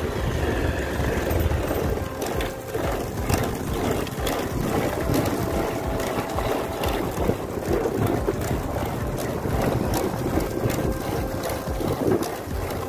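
Wind buffeting the microphone, a steady low rumble with short clicks scattered through it from the camera being handled.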